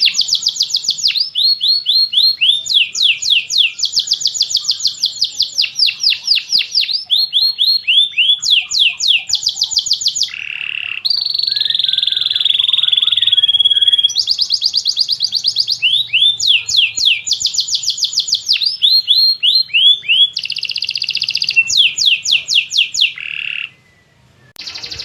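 Domestic canary singing a long, loud song of rapid trills, each a fast run of repeated high notes, switching to a new trill every second or two, with a buzzier warbling phrase midway. It breaks off briefly near the end.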